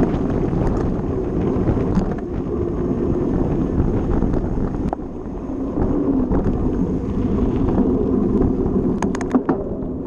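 Mountain bike riding along gravel and paved paths: the knobby tyres rumble steadily while wind buffets the action camera's microphone, and a few sharp rattling clicks come near the end.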